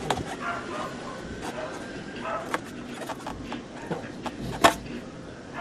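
Faint voices in the background with scattered sharp clicks and knocks, the loudest a little over four and a half seconds in.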